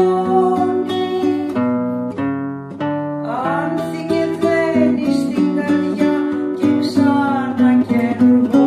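Classical acoustic guitar fingerpicking a melody over bass notes, with a singing voice gliding through long notes in places.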